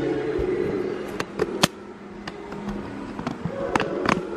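Gas hob's spark igniter clicking, about ten sharp clicks at uneven intervals, as the burner under the saucepan is lit.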